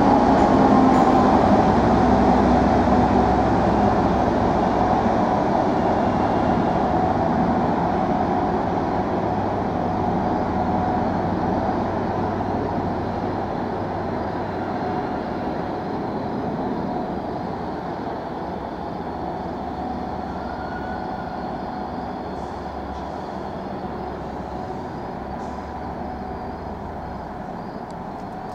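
A train running past on the rails, with a whine over the rumble, fading steadily as it moves away.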